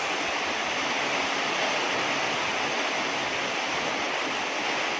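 Heavy storm rain pouring down with wind: a steady, dense hiss.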